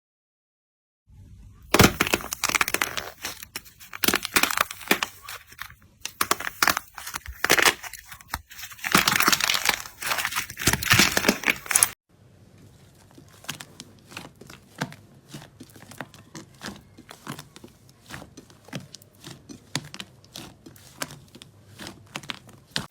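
Slime being squeezed and pressed in the hands, giving dense crackling and popping. The sound is loud at first, then cuts off suddenly about halfway through and continues as quieter, faster crackles.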